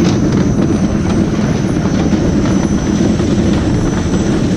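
Potato truck unloading machinery running with a steady, loud rumble and clatter.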